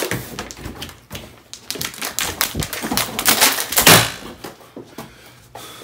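Handling noise from the recording phone as it is gripped and swung about: a rapid, irregular clatter of taps, knocks and rustles, loudest about four seconds in.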